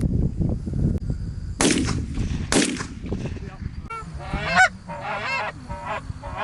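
Two shotgun shots about a second apart, followed by Canada geese honking in repeated calls that rise and fall in pitch.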